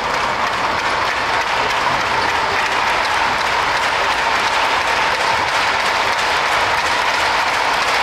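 Crowd of spectators clapping steadily, a dense, continuous patter of many hands.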